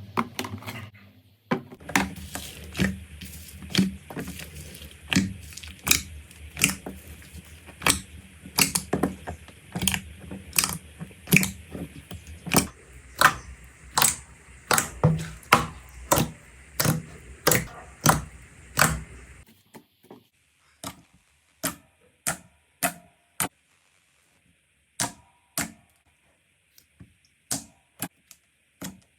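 Slime being pressed and worked, giving sharp pops and clicks about one or two a second. A low hum lies underneath until about two thirds through, when it stops and the pops carry on alone.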